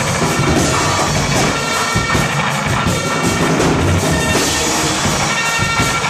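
Live band playing loud, dense music: a sustained droning layer with several steady held tones over repeated drum hits.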